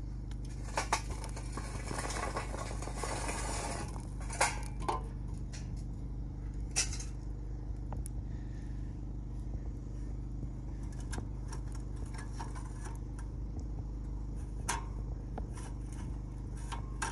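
Burning charcoal briquettes tipped out of a metal chimney starter into a steel grill box, a rattling, tumbling hiss for the first few seconds. Then scattered metallic clinks and knocks as the coals settle and the steel grill grates are moved into place, over a steady low hum.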